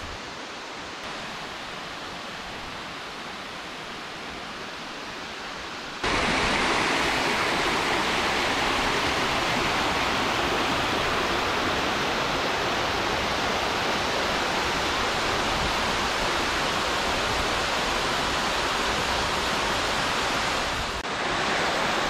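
Mountain stream cascading over mossy boulders, a steady rush of water. It is fainter for the first six seconds, then about six seconds in turns suddenly loud and stays steady.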